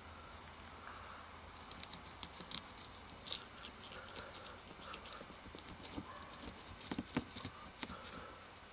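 Knife cutting down through a striped bass just behind the head: irregular crunching clicks and taps as the blade works through scales and bone, starting about two seconds in and coming thicker near the end.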